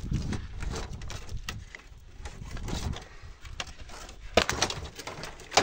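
Light clicks, rustles and knocks of a monitor's LCD panel, its thin metal frame and plastic sheets, being handled and pulled apart, with sharper clacks about four seconds in and near the end.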